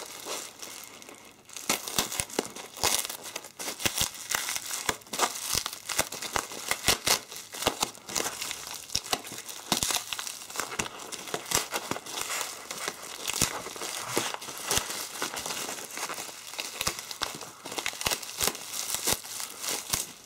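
Bubble wrap and taped paper wrapping crinkling and crackling as hands twist and pull at it to unwrap a small parcel, with a brief lull about a second in.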